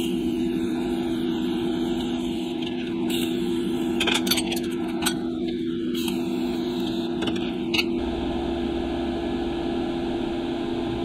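TIG torch tack-welding a weld nut onto a stainless heat-shield bracket: several short crackling bursts as the arc is struck for each tack, over a steady workshop hum.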